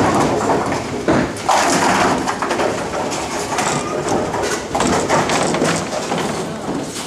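Bowling-alley din: a bowling ball rolling down the lane and pins being knocked, with several sharp knocks over a steady clatter and people's voices in the background.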